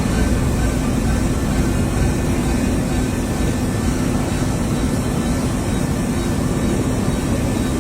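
A machine running with a steady, unchanging drone and hum.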